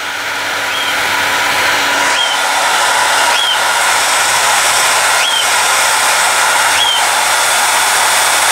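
Hand-held hair dryer blowing steadily, a loud even rush of air that builds over the first couple of seconds after switching on and then holds.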